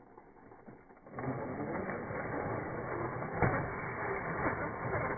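Toy RC rock crawler's electric motor and gearbox grinding and rattling as it drives over dirt and stones, starting about a second in, with scattered clicks and a louder knock about three and a half seconds in.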